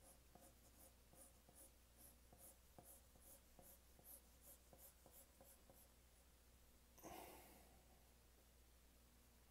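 4B graphite pencil scratching faintly on drawing paper in short, even strokes, about three a second. The strokes stop about six seconds in, and a brief louder rustle follows about a second later.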